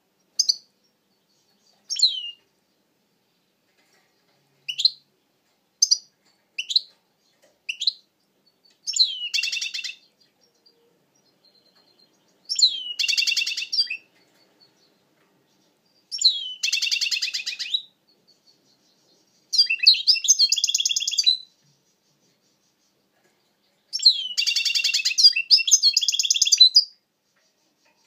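European goldfinch singing: a few short separate call notes, then five longer twittering song phrases of one to three seconds each, with pauses between them.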